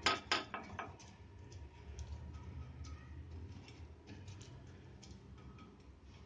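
A silicone brush tapping and scraping around the oiled wells of a nonstick appam pan: a few sharp light clicks in the first second, then fainter scattered ticks over a low hum.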